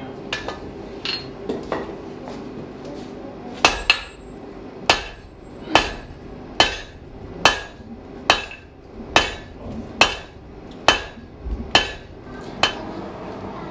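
Blacksmith's hammer striking hot iron on an anvil: a few light taps, then about a dozen sharp, evenly paced blows a little under a second apart, each ringing briefly.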